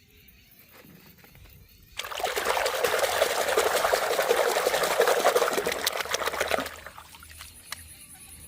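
Water running and splashing over toy cars being washed, starting suddenly about two seconds in and stopping about five seconds later.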